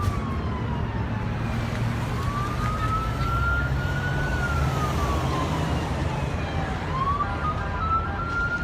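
Emergency vehicle siren wailing, its pitch rising and falling slowly in about two full sweeps, over a steady low rumble.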